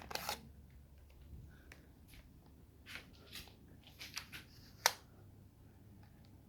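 Scattered light clicks and rustles, a dozen or so short sounds, the sharpest about five seconds in, over a faint steady low hum.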